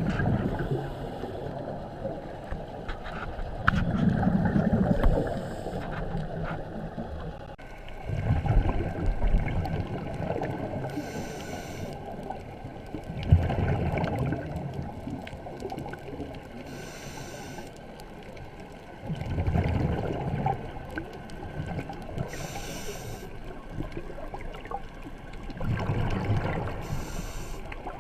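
Scuba diver breathing underwater through a regulator: a burst of exhaled bubbles gurgles up every five or six seconds, with short hissing inhalations in between.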